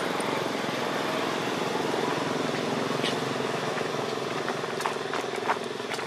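An engine running steadily, with a few light clicks in the second half.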